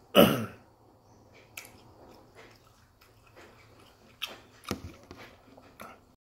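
A man's short, loud throat sound falling in pitch, like a gulp or belch, about a quarter second in. After it come scattered soft mouth clicks and smacks from chewing.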